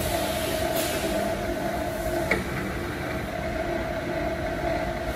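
A bandsaw-blade flash butt welding machine hums steadily under electrical load while current heats the blade joint during pyrometer-controlled annealing. A single sharp click comes a little over two seconds in.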